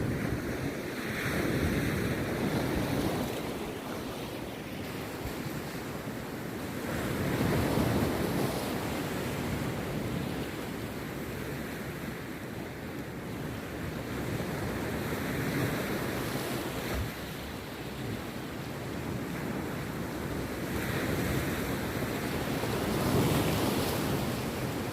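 Rough sea surf breaking on a beach, a steady wash of water that swells into a louder crashing wave every several seconds, five times or so.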